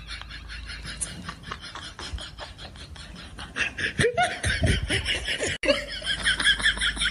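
A dog lapping water from a bowl in a quick, even rhythm of wet clicks. From about three and a half seconds in, laughter rises over it and becomes the loudest sound.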